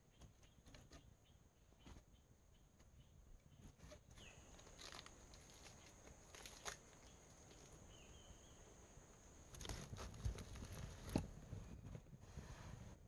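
Near silence: faint forest ambience with a steady high hum, scattered small knocks and rustles from a green bamboo tube being handled, and two short chirps. A few louder knocks come near the end as the tube is set down.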